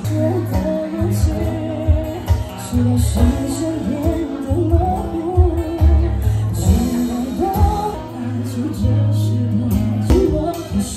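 Live band playing a pop song: a woman singing the lead over guitar and a heavy, steady bass line.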